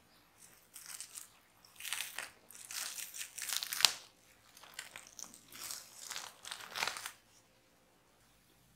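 Plastic cling film being peeled off the rim of a ceramic baking dish, crinkling in a series of pulls with one sharp crackle about four seconds in; the crinkling stops about seven seconds in.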